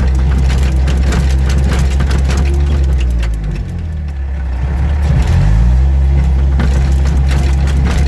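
Case 430 skid steer's diesel engine running hard and steady, with scattered clicks and rattles. About three seconds in, the revs sag for a second or so, then climb back up.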